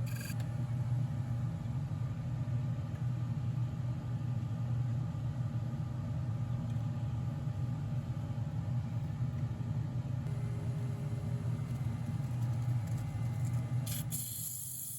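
Woodworking lathe's electric motor running with a steady low hum. Near the end the hum drops away and a hiss begins.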